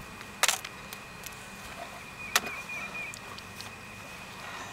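Wooden beehive box knocking as it is worked loose and lifted off the hive stack: a quick rattle of sharp wooden knocks about half a second in, then a single sharp crack about halfway through.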